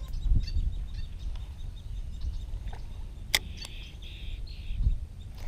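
Wind buffeting the microphone in an uneven low rumble, with scattered faint bird chirps and a single sharp click about three seconds in.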